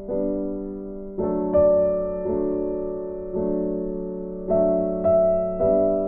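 Background music: slow, gentle piano playing chords struck about once a second, each left to ring and fade.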